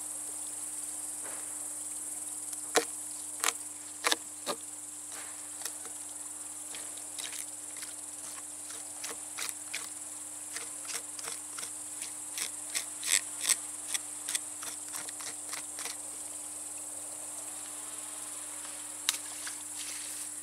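A knife clicking and scraping against a sacking-covered wooden board while crucian carp are cleaned and gutted, in irregular sharp taps that come thickest in the middle. A steady high chirring of crickets runs underneath.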